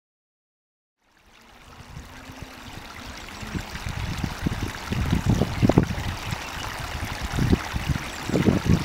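Stream water flowing, fading in after about a second of silence. Low rumbles of wind buffeting the camera's built-in microphone come and go over it, growing stronger toward the end.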